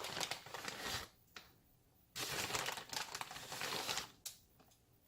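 A plastic bag of shredded cheese crinkling as it is handled and shaken out, in two bursts about two seconds long, with a sharp click between them.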